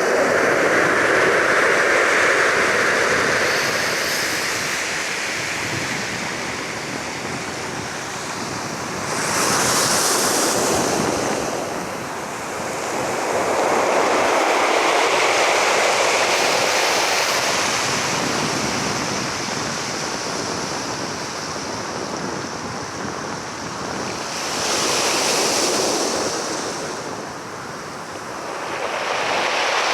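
Sea waves breaking and washing on a shore, the surf swelling and ebbing every several seconds, with a few hissing crashes along the way.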